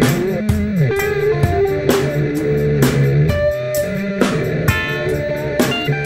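Background music: electric guitar and bass over a steady beat.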